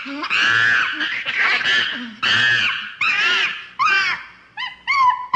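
Ape calls in quick succession: about half a dozen loud, pitched cries, the later ones shorter and arching up and down in pitch.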